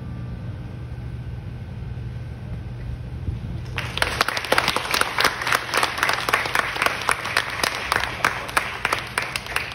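The last plucked chord of a guitar and bandurria-type instrument dies away, then audience applause breaks out about four seconds in, with sharp claps close by.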